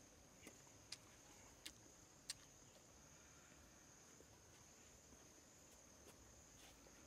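Insects droning steadily in a high, even tone, with a few short sharp clicks in the first two and a half seconds.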